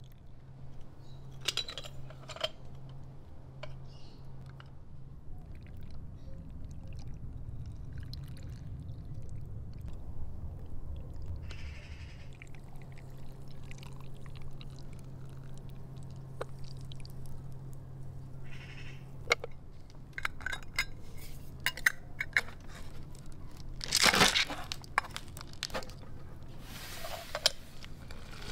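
Lemon juice being poured from a metal cup into glass jars of sliced lemons, with small clinks and knocks of metal and glass. A louder brief scrape-like burst comes near the end, while the manual lever lemon juicer is being handled.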